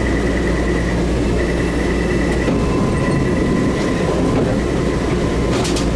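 Taipei Metro Wenhu Line Innovia APM 256 train standing at a station platform, its onboard equipment running with a steady hum. Faint steady tones sound over it, and a few sharp clicks come just before the end.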